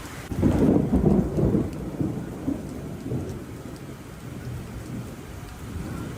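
A thunder clap rumbling over steady rain: it swells about half a second in, is loudest for the next second or so, then rolls away in a few weaker swells.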